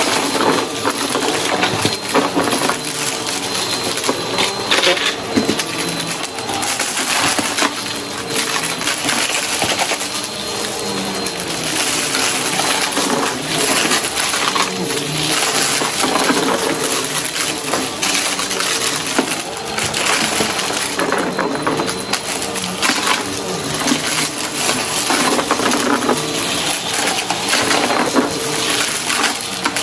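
Bagless upright vacuum cleaner running steadily over shag rugs, with constant crunching and rattling as glitter, sequins and small hard debris are sucked up and clatter into the clear dust bin.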